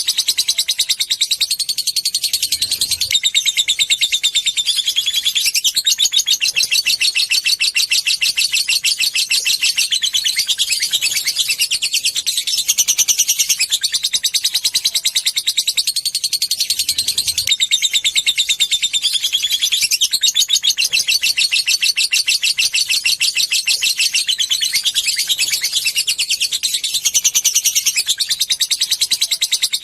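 Lovebird singing a long, unbroken, high-pitched chatter of very fast repeated notes.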